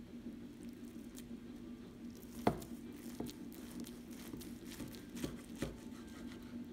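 A chef's knife slicing through a crusty, glazed turkey meatloaf on a wooden cutting board: soft crackling and squishing as the blade goes through, with a sharp knock about two and a half seconds in and a few lighter knocks later as the blade meets the board. A steady low hum runs underneath.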